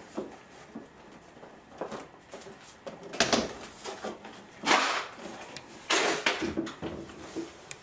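A bifold closet door being handled and positioned: scattered light knocks and clicks, with three louder scraping strokes in the second half.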